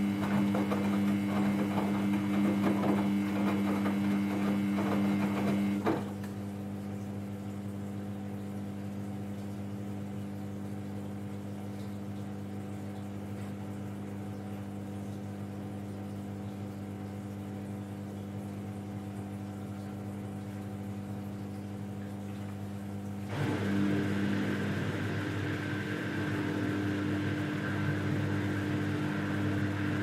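Samsung Ecobubble front-load washing machine on a quick wash cycle: the drum motor hums as it tumbles the wet laundry, with a light clatter, then stops abruptly about six seconds in, leaving a quieter steady hum. Near the end a louder motor hum starts up again.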